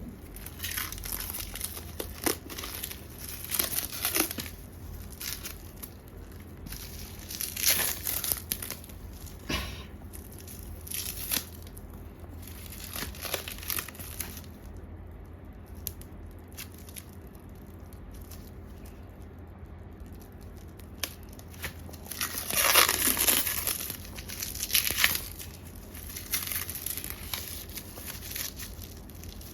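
Packaging being torn open and crumpled by hand: repeated bursts of tearing and crinkling. There is a quieter stretch midway, and the longest, loudest rustle comes about two-thirds of the way through.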